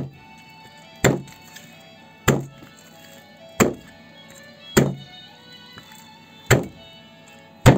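Pike bones being cut into pieces over a cutting board: six sharp chopping strokes about a second apart, over background music.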